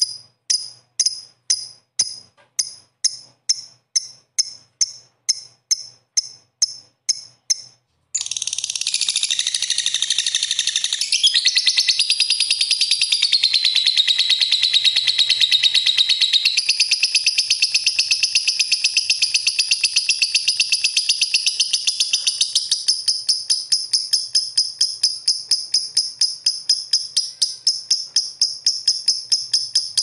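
Lovebird calling: evenly spaced sharp high chirps, about two or three a second, then about eight seconds in a continuous rapid high-pitched chattering trill, the long 'ngekek' call prized in lovebird contests. In the last several seconds the trill breaks into fast even pulses.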